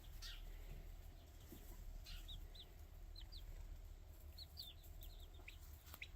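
Young chicks, about a month old, peeping faintly: short high cheeps scattered through, coming more often after the first couple of seconds.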